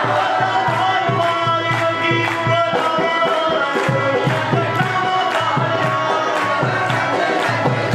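Punjabi devotional kirtan music: a man's voice singing into a microphone over a steady hand-drum rhythm and held accompanying tones, with the group clapping along.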